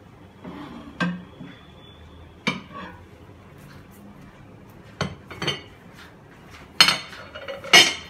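Kitchenware being handled: a covered glass bowl lifted out of a microwave and utensils knocked about, giving a handful of separate clinks and knocks. The loudest two come near the end.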